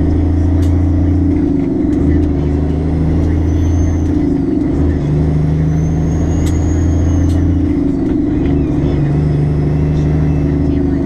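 Semi truck's diesel engine running, heard from inside the cab as a loud, steady low drone while the truck drives at low speed. Its pitch shifts slightly a few times, and a faint high whistle rises and falls now and then.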